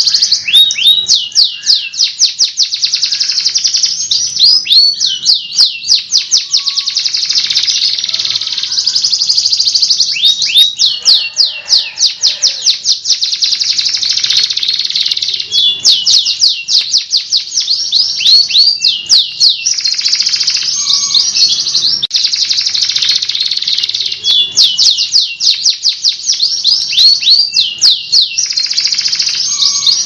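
Domestic canary singing without pause: long, rapid rolling trills alternate with runs of quick sweeping notes, all high-pitched.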